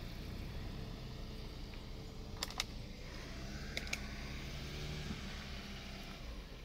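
Car engine idling, a low steady hum, with two pairs of sharp clicks, one about two and a half seconds in and one nearly four seconds in.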